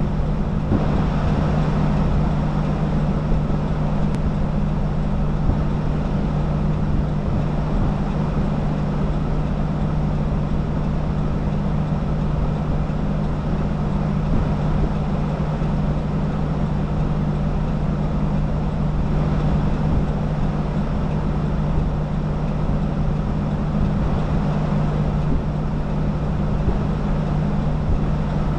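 Steady drone of a moving vehicle heard from inside it: road and engine noise with a constant low hum.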